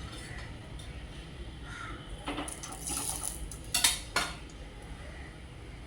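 Kitchen utensils clinking and scraping against dishes, with two sharper knocks about four seconds in, over a low steady hum.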